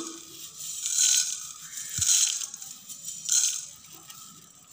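Coriander seeds poured from a steel bowl into a dry kadai, rattling onto the pan in three short bursts, with a dull knock about two seconds in.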